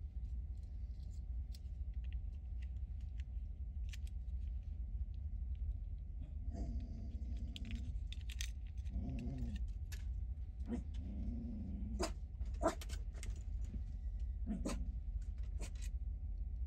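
Scattered small clicks and taps of plastic toy parts being handled and fitted together, with a few short rustles between them, over a steady low hum.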